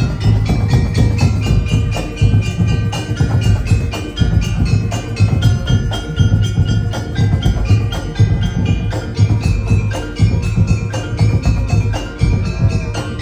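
An ensemble plays music of struck, tuned metal and wooden bars with a drum keeping a steady beat, like a Javanese gamelan or a gamelan-based band. Quick struck notes and low beats run continuously throughout.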